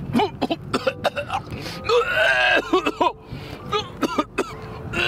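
A person's wordless vocal sounds, with music underneath.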